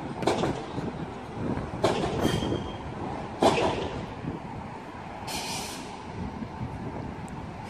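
Manchester Metrolink Bombardier M5000 tram pulling into the terminus. A steady running rumble is broken by several sharp knocks of the wheels over track joints, with a brief wheel squeal about two seconds in and a short hiss a little after five seconds.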